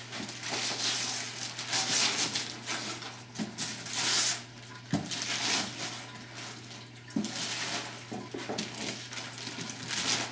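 Christmas wrapping paper being torn and crumpled in loud, rustling bursts as a gift box is unwrapped.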